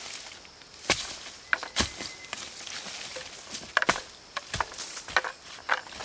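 Scattered, irregular knocks and crunches on dry ground, about eight sharp ones over six seconds, over a faint outdoor background.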